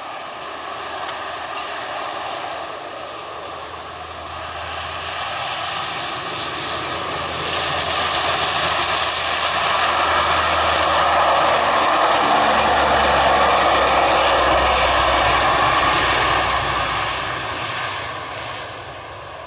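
Antonov An-12BK's four Ivchenko AI-20 turboprops at takeoff power during the takeoff roll, with a high turbine whine over the propeller noise. It grows louder as the aircraft rolls past, is loudest in the middle, and fades near the end as it moves away.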